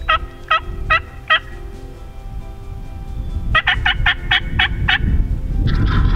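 Wild turkey calls: a series of four sharp, evenly spaced notes, then about two seconds later a faster run of seven notes.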